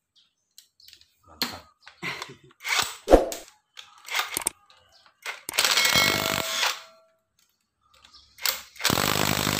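Metal engine parts and hand tools clinking, then two bursts of about a second each from a power tool working the connecting-rod cap bolts on a Mitsubishi L300 diesel crankshaft, taking the caps back off after the torque check.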